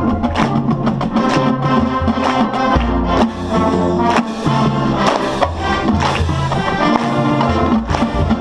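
A drum and bugle corps, brass and percussion, playing loud held brass chords with drum and cymbal hits about once a second.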